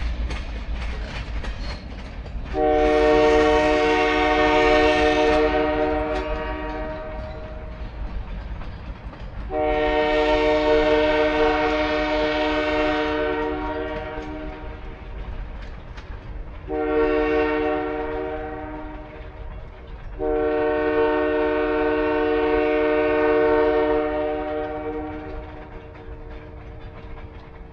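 Freight locomotive's multi-chime air horn sounding the crossing signal: two long blasts, a short one and a final long one, each a chord of several notes that starts loud and tapers off. Long-long-short-long is the standard warning for a train approaching a public grade crossing.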